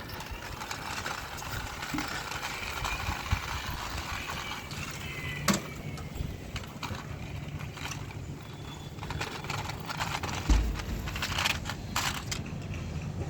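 Plastic toy vehicles being handled, with scattered sharp clicks and a low thump about ten and a half seconds in, over a faint steady background noise.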